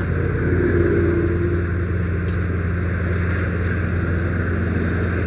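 Steady low engine rumble with an even hiss of water spraying from a fire hose nozzle onto a burned-out car.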